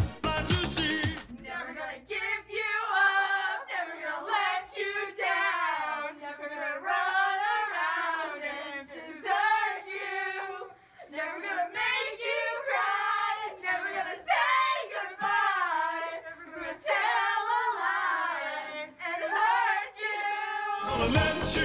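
Several girls singing together a cappella, voices only with no instruments or beat. A dance-pop music track cuts off about a second in and comes back just before the end.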